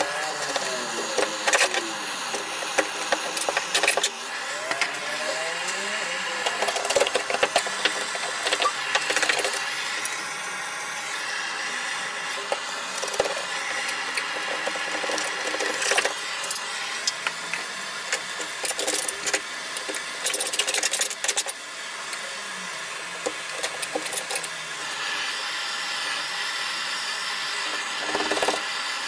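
Handheld gas-canister blowtorch hissing steadily as it heats underseal on a car's underbody to soften it, with irregular scrapes and clicks of a hand scraper working the softened underseal off the steel.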